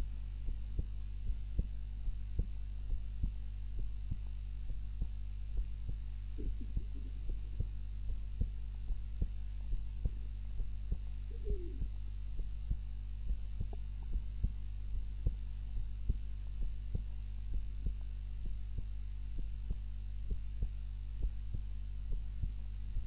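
A sleeping woman's heartbeat at rest, beating slowly and steadily, over a steady low hum.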